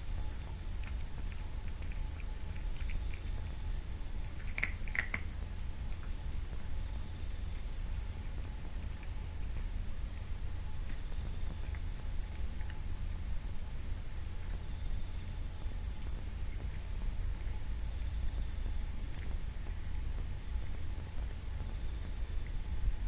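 Steady low hum with faint pattering, and two short high cat mews a little after four and a half seconds in.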